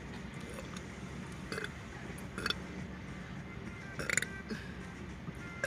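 A person burping: three short burps, the loudest and most drawn-out about four seconds in.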